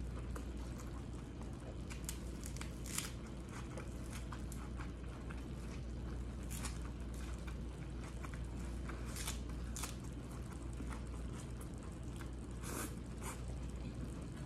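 A person chewing a mouthful of bulgogi ssam wrapped in fresh lettuce leaves, with scattered crisp crunches and wet biting sounds, over a steady low hum.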